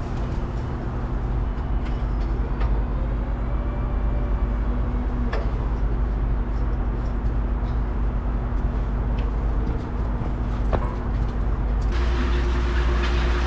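Diesel engine of a work truck running steadily, with a few light clicks and knocks. About twelve seconds in the engine note grows louder and fuller.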